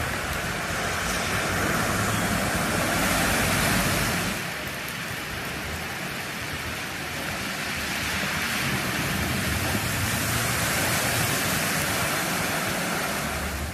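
Cars driving through deep floodwater on a street, their tyres throwing up spray in a rushing wash, with heavy rain. The rush swells about two to four seconds in, drops suddenly, then builds again past the middle as more vehicles pass.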